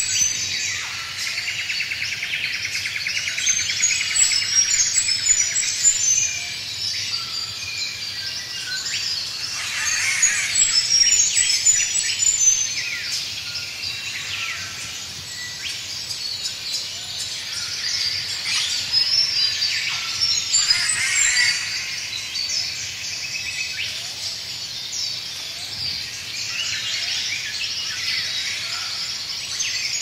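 Tropical rainforest dawn chorus: many birds singing and calling at once in a dense layer of chirps, whistles and quick sweeping notes, with eastern whipbird and rufous whistler among the singers. The chorus swells louder twice, about ten seconds in and again about twenty seconds in.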